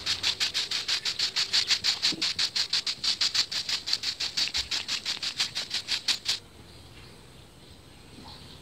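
Stiff-stick hand broom sweeping bare dirt, about five quick scratchy swishes a second, stopping abruptly about six seconds in.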